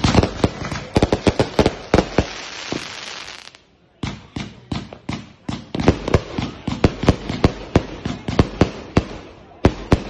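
Aerial fireworks going off in rapid succession, several sharp bangs a second from shells launching and bursting. The bangs stop for about half a second around three and a half seconds in, then start again with another volley.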